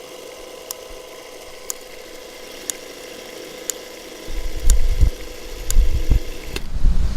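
A steady hum with a sharp tick once a second, then loud low rumbling that starts about four seconds in. The hum and ticking cut off near the end.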